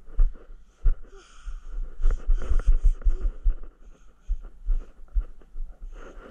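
Handling noise on a body-worn camera: irregular low bumps and rustling as the wearer walks barefoot and handles cardboard, with breathing close to the microphone.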